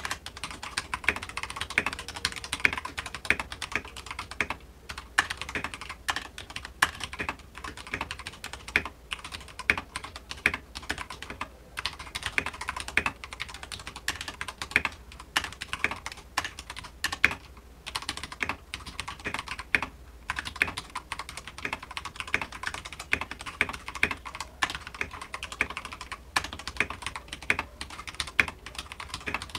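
Akko 3087 tenkeyless mechanical keyboard typed on fast: a rapid, irregular run of key clicks and clacks, with a few short pauses.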